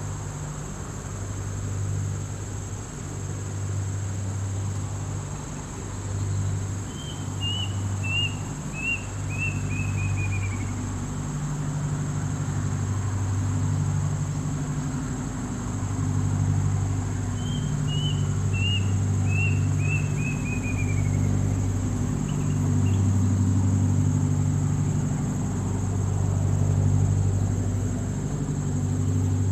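A bird calling twice, about ten seconds apart, each time a quick run of five or six short chirps falling in pitch. Under it runs a steady low drone that shifts pitch every second or so, with a constant high hiss.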